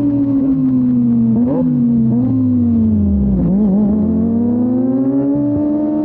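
Kawasaki Ninja ZX-25R's 250 cc inline-four running through a Yoshimura R-11 exhaust while riding. The engine note falls slowly, wavers briefly about one and a half and three and a half seconds in, then climbs again as the throttle is opened.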